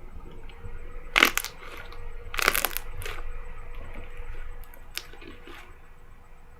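Crunchy slime being squeezed and pressed by hand, crackling and popping, with two louder crunches about one and two and a half seconds in and a few fainter pops after.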